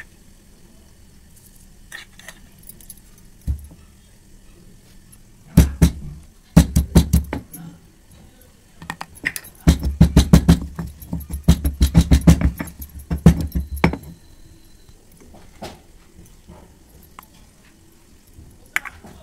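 Stone pestle pounding garlic cloves and red chilli powder in a granite mortar: loud, rapid knocks in two spells, a shorter one about five seconds in and a longer run from about ten seconds in.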